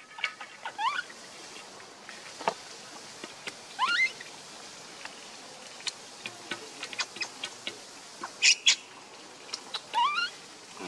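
Baby macaque giving short, high squeaks that climb in pitch, three times. Faint scattered clicks run throughout, with a brief sharp crackle about two-thirds of the way through.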